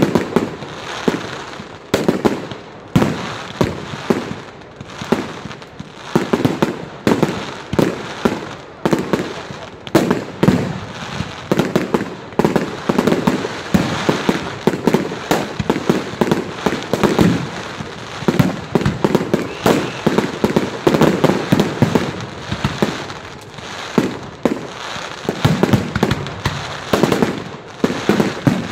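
Firework display: a continuous barrage of aerial shell bursts and bangs, several a second, with crackling between them.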